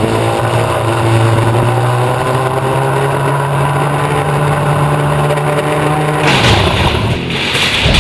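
ATV engine held at high revs, a steady engine drone, after revving up. About six seconds in, the engine sound cuts off and a loud rushing noise takes over.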